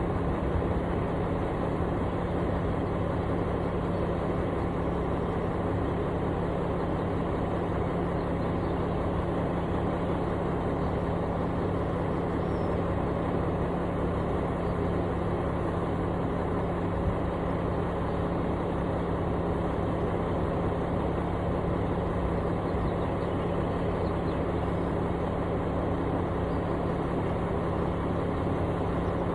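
Heavy construction machine engine running steadily, a constant low hum with no change in speed.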